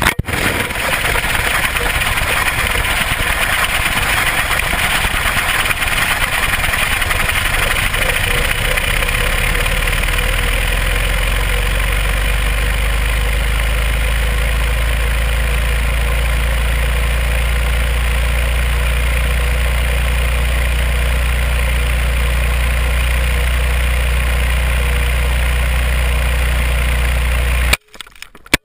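Wind rushing over a GoPro camera tumbling in free fall after it dropped from a light plane. It is a loud, steady rush whose low rumble grows stronger as the camera falls. It cuts off suddenly near the end as the camera hits the ground, followed by a few brief knocks.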